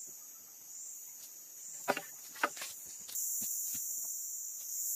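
Forest insects droning steadily at a high pitch, louder from about three seconds in. Two sharp knocks about half a second apart near the middle, with a few fainter clicks.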